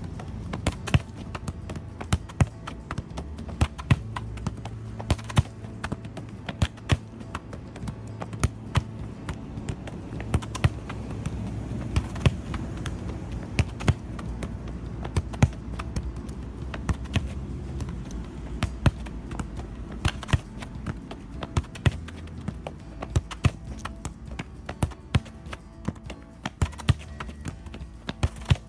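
A soccer ball being dribbled on an asphalt road: sharp, irregular taps of shoe on ball and ball on pavement, about one or two a second, over background music.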